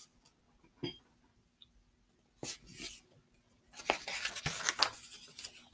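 Paper rustling and scraping as a picture book's page is handled and turned: a few short scrapes, then a longer rustle in the second half.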